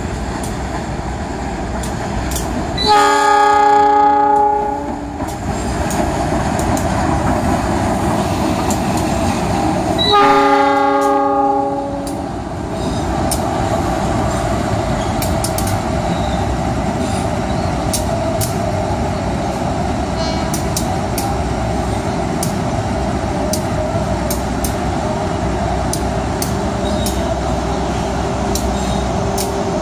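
Diesel-electric locomotive sounding its multi-tone horn twice, each blast about two seconds long, over the steady rumble of its engine and the train rolling in along the rails.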